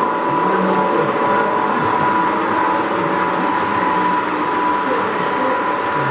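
O scale model passenger train running on two-rail track: a steady running noise with a thin, high, steady whine.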